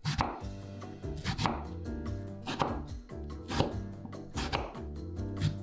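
Crinkle cutter chopping down through a peeled raw potato onto a wooden cutting board, one sharp cut about every second.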